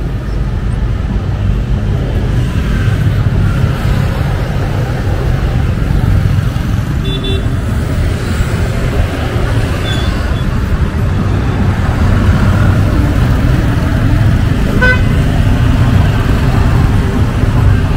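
City street traffic of motorbikes and auto-rickshaws passing with a steady low rumble, and a short horn toot about fifteen seconds in.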